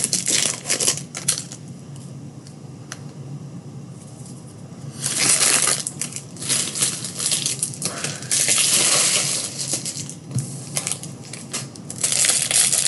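Paper trading cards and packs being handled: crinkly rustling and small clicks of cards sliding against each other, in several bursts with quieter gaps between.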